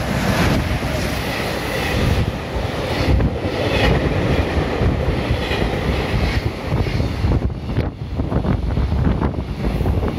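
JR Freight EF210 electric locomotive and its container wagons passing through a station at speed: steady rumble of the train, with clattering knocks of the wagon wheels over the rail joints, more distinct in the second half.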